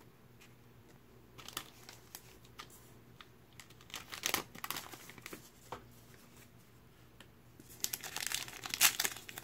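Light scattered rustles and taps of trading cards being handled and set down, then, from about eight seconds in, the foil wrapper of a Mosaic basketball card pack crinkling and tearing as it is ripped open.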